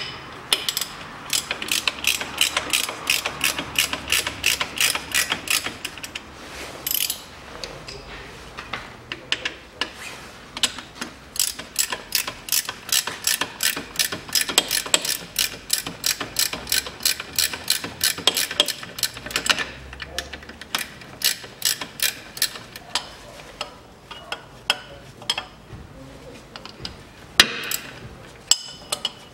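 Hand ratchet wrench clicking as the bolts of a car's rear engine mount are undone: quick, even runs of clicks broken by short pauses while the ratchet is reset on the bolts.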